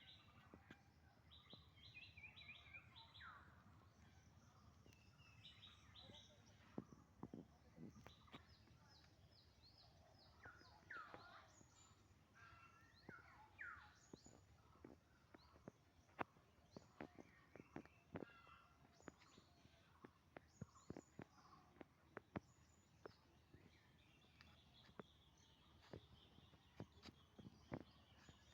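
Faint birdsong outdoors: short chirps repeated in quick runs and rising whistled notes, with scattered sharp ticks throughout, more often in the second half.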